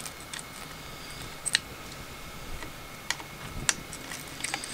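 Sharp, scattered clicks of a screwdriver working the small fan screws on a 3D printer's print head, about five clicks spread over a few seconds, over a faint steady tone.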